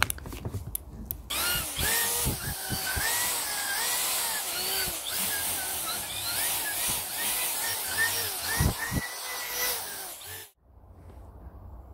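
Power drill spinning a rotary brush against rusty cast iron, scouring rust from inside a bore; the motor's pitch dips and rises as the brush is pressed in and eased off. The drill stops abruptly near the end.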